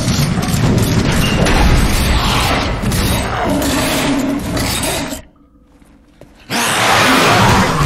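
Horror-film soundtrack: a loud, dense mix of score and sound effects that drops away suddenly to quiet for about a second just past the middle, then slams back in loud near the end.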